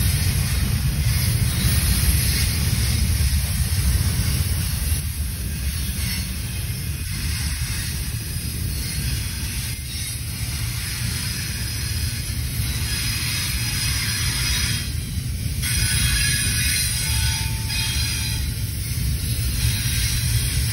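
Union Pacific double-stack intermodal container train rolling past: a steady low rumble of wheels on rail with a hissing high end.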